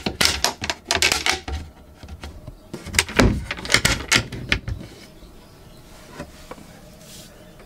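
Wooden locker doors knocking shut and small stainless steel turn latches clicking as they are fastened by hand: a quick run of clicks and knocks, then a second run about three seconds in, after which the sounds stop.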